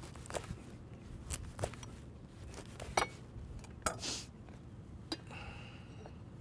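A chef's knife sawing through a crusty baguette on a wooden cutting board, then plates and food being set down. The sound is a scattered series of sharp clicks and light knocks, with a short crackle of crust a little after four seconds in.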